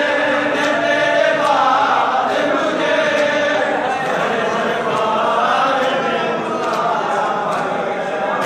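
Crowd of Shia mourners chanting together in unison during matam, with a regular beat of hands striking bare chests.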